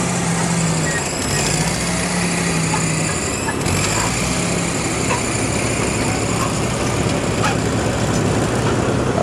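Ford 8N tractor's four-cylinder flathead engine running steadily under load while pulling a disc harrow through loose soil.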